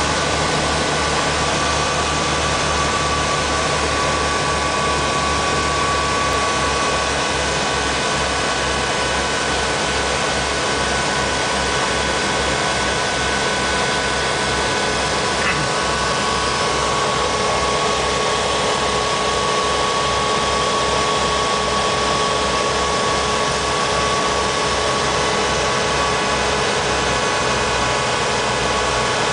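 Cabin noise of a Piper PA-30 Twin Comanche on approach to land: its two four-cylinder Lycoming engines and propellers droning steadily, with a low throb that pulses a few times a second.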